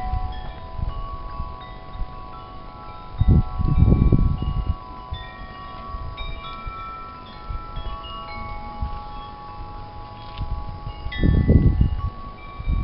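Wind chimes ringing irregularly, many overlapping tones struck at random moments. Wind gusts rumble on the microphone twice, about three seconds in and again near the end.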